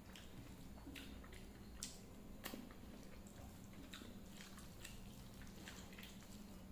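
A person eating a meal of rice and dal with fried fish and vegetables, with faint chewing and wet mouth clicks at irregular moments. A steady low hum runs underneath.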